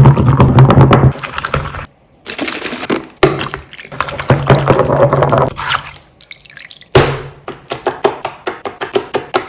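Crunchy slime being crushed and pressed: dense crackling clicks, squishy thunks and pops. It comes in three stretches that cut in and out abruptly, with a low hum under the first two, and there is a run of fast crackles near the end.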